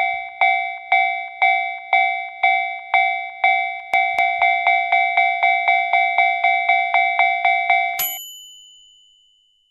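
Japanese railway level-crossing alarm ringing its 'kan-kan' bell in even strokes, about two a second, quickening to about three a second midway. It stops about eight seconds in with one last higher ring that fades away.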